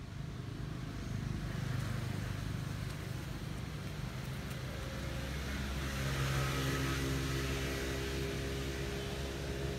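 A motor vehicle's engine running with a steady low hum, swelling a little louder about six to seven seconds in and easing off after.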